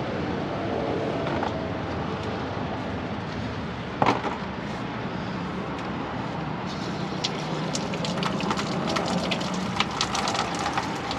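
Coolant filter on a truck engine being worked loose with a tool: a sharp knock about four seconds in, then quick crackling ticks as hot coolant starts to leak and drip from the loosened filter, over steady background noise.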